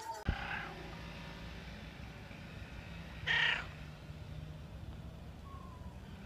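A cat gives one short meow about three seconds in.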